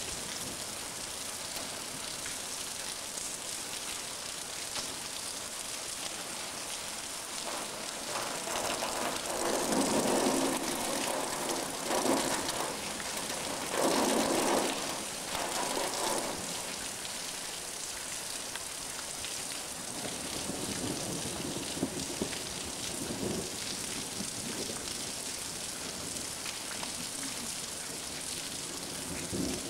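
Heavy rain falling steadily. In the middle a roll of thunder swells in several waves for about six seconds, then dies back into the rain.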